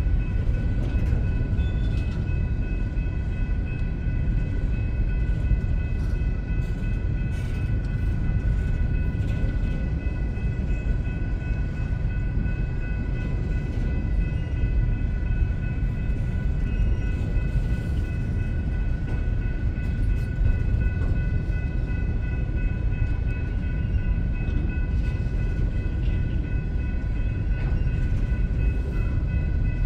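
Empty coal train cars rolling past on the rails, a steady heavy rumble with several faint, steady high-pitched tones over it.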